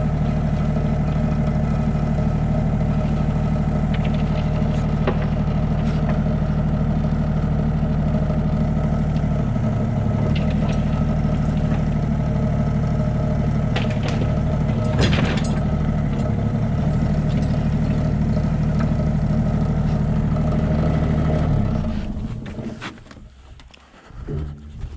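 Yanmar mini-excavator's diesel engine running steadily close by, with a short clank about fifteen seconds in. The engine is switched off a few seconds before the end and dies away.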